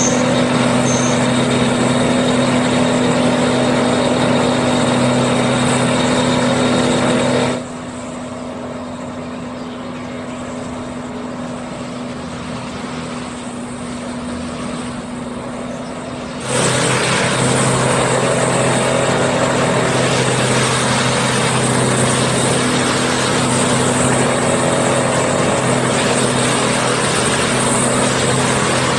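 Diesel engine of an orange MATISA track-maintenance machine running steadily with a low, even hum. About 7.5 s in it drops to quieter, more distant outdoor noise. It comes back loud about 16.5 s in.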